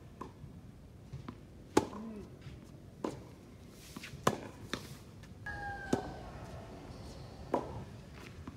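Tennis rally on a hard court: sharp pops of the ball off racket strings and bouncing on the court, about six in all, the loudest about two seconds in and just after four seconds. A short squeak a little past the middle.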